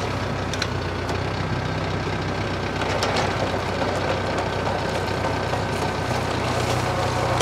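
TYM compact tractor's diesel engine running steadily, a little louder from about three seconds in, with a few faint clicks.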